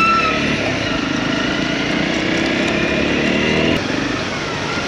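Honda CRF250L single-cylinder engine running on the move over gravel, its note climbing slightly, then dropping away nearly four seconds in, over steady wind and road noise.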